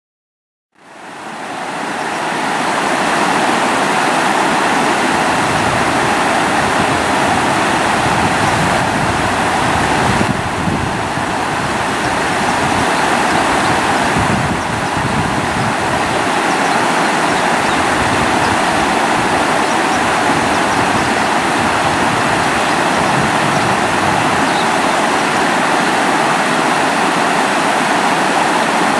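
Fast river water rushing over rocks in a small cascade, a steady, even rush that fades in over the first couple of seconds.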